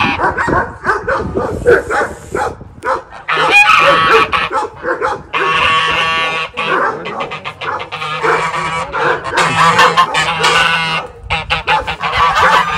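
White domestic geese honking loudly and repeatedly, several calls overlapping with hardly a break.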